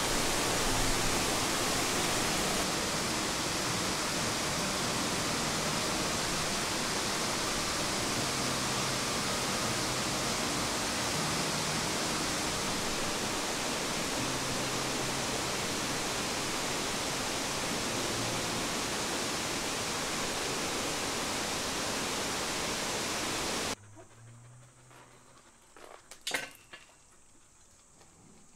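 Steady rushing of a tall two-tier waterfall, cutting off abruptly about 24 seconds in. After that it is nearly quiet, with a single sharp click about two seconds later.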